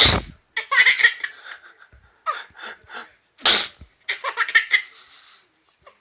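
A man's fake sneeze, once right at the start and again about three and a half seconds in after a short drawn-out wind-up, each answered by a young child's loud laughter.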